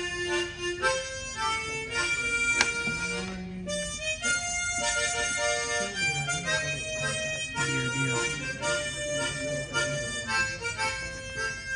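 A harmonica playing a slow melody of held notes and chords, the notes changing every half second to a second or so.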